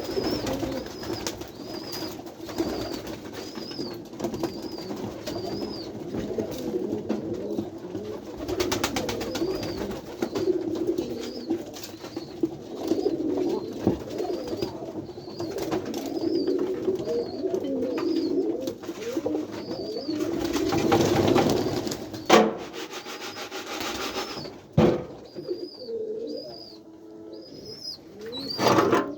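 A flock of white Kaguji pigeons (Indian high flyers) cooing together in the loft, a steady overlapping low warble. A high short chirp repeats about once a second through much of it, and there are a few sharp knocks in the last several seconds.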